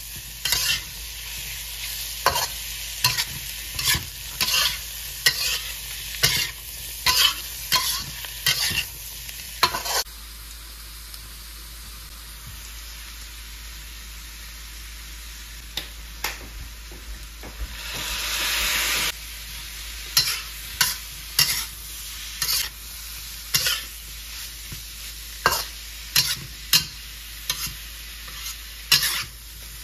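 A spatula scraping and knocking against a wok while stir-frying diced Chinese sausage, shiitake mushrooms and dried shrimp in hot oil, with a steady sizzle underneath. The knocks come about once or twice a second, then stop for several seconds where only the sizzle is heard, with a brief louder hiss a little past halfway, before the stirring starts again.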